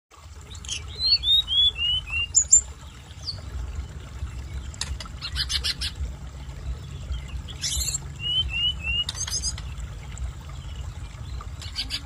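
Hill blue flycatcher singing: a run of five clear whistled notes, each a step lower in pitch, then later three more falling notes, between short bursts of fast, scratchy chattering. A low rumble runs underneath.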